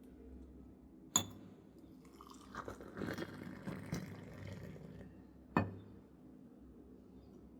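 Metal kitchen vessels being handled: a sharp clink with a short ringing tone about a second in, a stretch of scraping and rattling, then another sharp clink.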